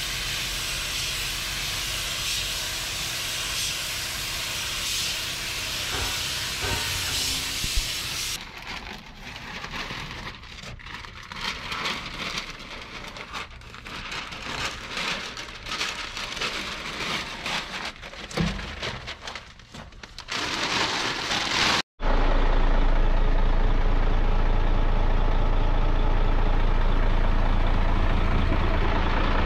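Compressed-air paint spray gun hissing steadily, then a quieter, irregular stretch of short sounds, then a brief hiss again. After an abrupt cut about 22 seconds in, a heavy truck engine idles steadily and loudly with a low-pitched running sound.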